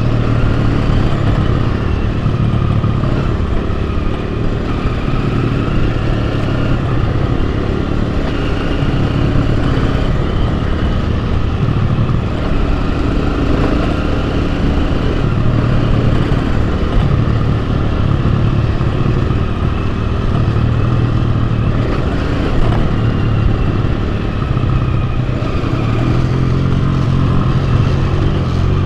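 Enduro dirt bike engine running while riding a trail, its pitch rising and falling with the throttle.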